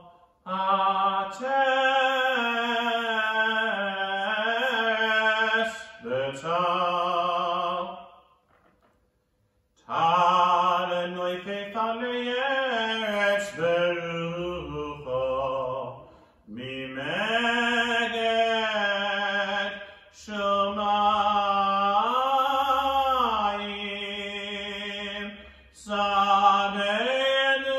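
A male cantor chanting Hebrew liturgy solo and unaccompanied, in long held phrases with ornamented, wavering notes. The chant stops for about a second and a half about a third of the way in, then goes on.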